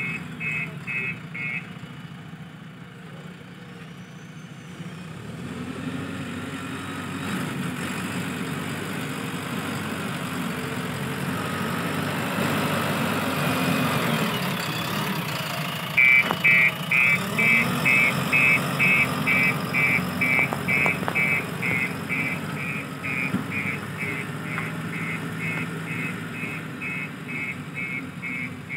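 JCB 3DX backhoe loader's diesel engine running, its revs rising through the middle stretch, with a reversing alarm beeping steadily, about two to three beeps a second, at the start and again from a little past halfway to the end.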